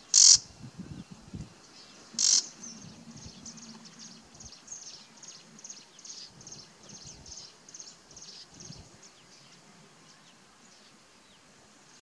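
Bay-backed shrike giving two loud, harsh calls about two seconds apart, followed by a run of quick, high, thin notes at about three a second that fade out after several seconds.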